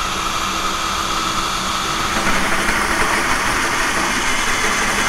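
Electric drill running steadily as its bit cuts a hole through a galvanized steel drip pan. About two seconds in, the sound grows a little louder and brighter.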